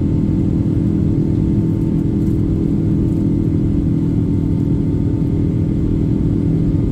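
Cabin noise of a Boeing 777-200ER in its climb after takeoff, heard from a window seat beside the wing: a steady engine drone with a constant hum over the rush of air.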